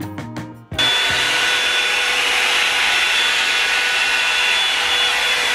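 Background music cuts off less than a second in, replaced by a Revlon One-Step hot-air brush running steadily: a loud rush of blown air with a thin steady whine.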